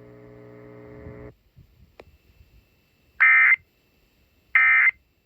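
Emergency Alert System end-of-message signal on NOAA Weather Radio: two short, identical buzzy data bursts about 1.3 seconds apart, the SAME digital tones that close the warning broadcast. Before them there is a faint low buzz for about a second, then a click.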